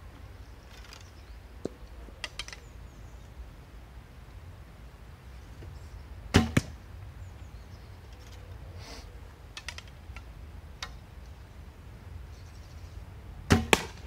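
Maple-limbed one-piece hunting recurve bow (Jackalope Malachite, 35 lb) shot twice, about seven seconds apart. Each shot is a sharp string slap followed a split second later by a second crack as the arrow strikes the straw target.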